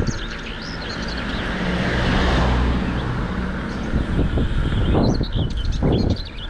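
Tyre and road noise of a passing vehicle, swelling to its loudest about two seconds in and then fading, with birds chirping at the start and near the end.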